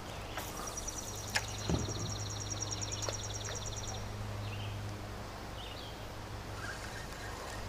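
An animal's high, rapid trill, about eight notes a second, lasting roughly three and a half seconds, over a steady low hum, with a couple of short knocks early in the trill.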